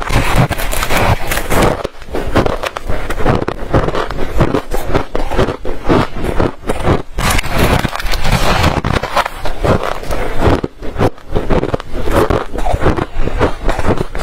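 Freezer frost being bitten and chewed close to a lapel microphone: a dense, irregular run of crisp crunches, one after another with barely a pause.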